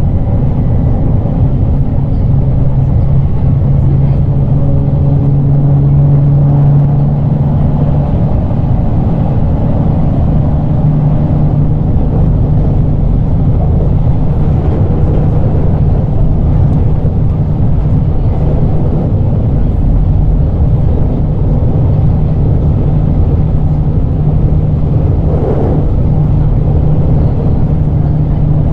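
JR Kyushu 817 series electric train running at steady speed, heard from inside the car: a continuous low rumble of wheels on rail under a steady hum that shifts up a little about eight seconds in.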